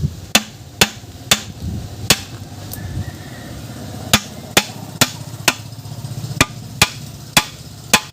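A hammer striking about a dozen sharp blows, in irregular groups, over a low steady hum.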